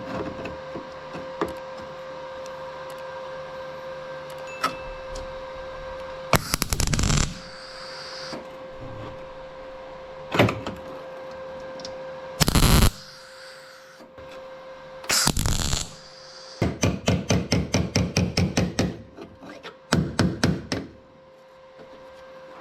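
Welder laying short tack welds on thin sheet-metal car body panel: several bursts of arc crackle, each under a second long, and a quick run of pulsed tacks, about five a second, near two-thirds of the way in. A steady hum runs underneath.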